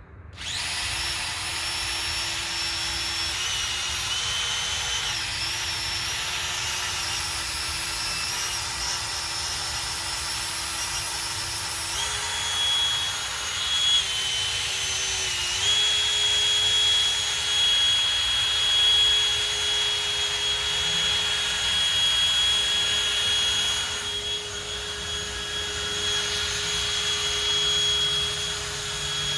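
Power drill spinning a 3000-grit sanding pad against a plastic headlight lens: a steady motor whine that starts at once and steps up in pitch twice, about 12 and 16 seconds in.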